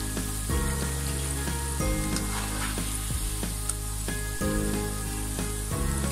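Cabbage pakoras deep-frying in hot oil: a steady sizzle. Low sustained background-music notes run underneath.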